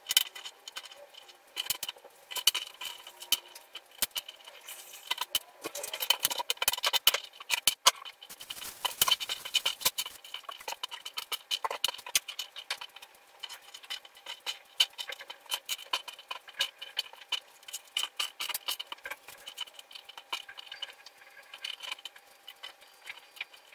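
Irregular light clicks and taps of small wooden cut-out pieces being picked up, slid and set down on a flat board, busiest in the first half.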